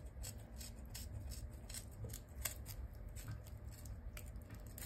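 Kitchen scissors snipping through a dart fish's head: a series of faint, sharp clicks from the blades as they cut.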